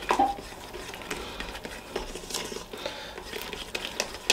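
Plastic-coated whisk stirring a thick cheese sauce in a cooking pot: soft scraping with scattered light taps against the pot, and a sharper click near the end.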